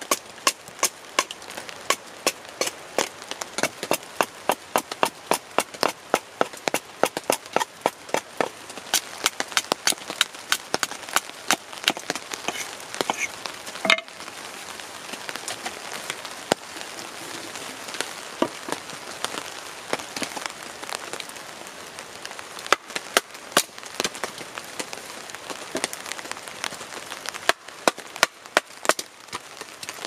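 Hatchet chopping at the edge of a split wooden shingle stood on a chopping block, trimming off the sapwood: quick sharp wood knocks, about three a second at first, thinning out in the middle and picking up again near the end. Steady rain patters in the background.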